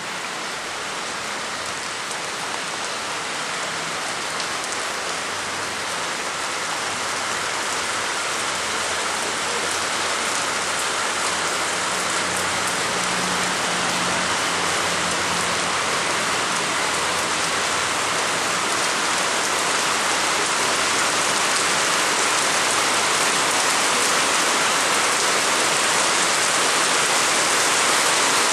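Heavy rain pouring down, a dense, even hiss that grows gradually louder.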